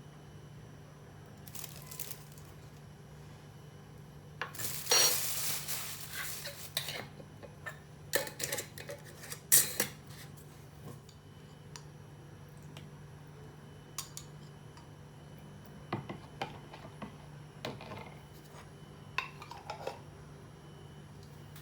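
Kitchen utensils and dishes clinking and scraping: a spoon knocking against a bowl, with a dense run of scraping and clatter about five seconds in, sharp clinks around nine seconds, then scattered taps.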